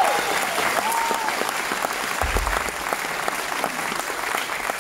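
Audience applauding after a song, a dense patter of many hands clapping.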